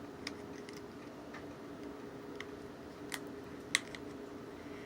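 Small plastic clicks and taps, about seven of them at irregular spacing with the loudest near the end, as a battery is handled and fitted into a toy mini drone.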